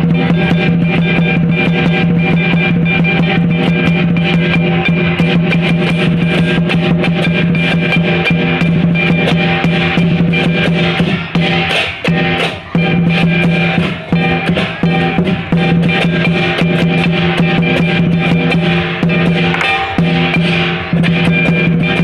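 Lion dance music: fast, dense drum and cymbal strikes over a steady low held tone, which breaks off briefly a few times.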